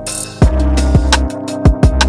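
Background music with a steady electronic drum beat and bass.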